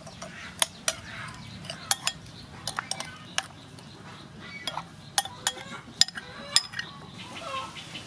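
Metal spoon clinking and scraping against a ceramic bowl in irregular sharp taps as a tamarind sauce with shallots and chilies is stirred. Chickens cluck now and then in the background.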